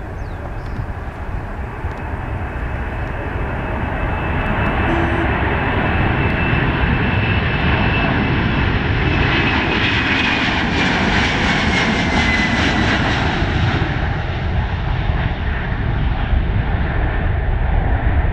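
Boeing 767-300F freighter's twin jet engines at takeoff thrust during the takeoff roll. The roar builds over the first few seconds as the aircraft approaches. A high whine falls in pitch as it passes, about ten seconds in, after which the hiss fades while a deep rumble carries on.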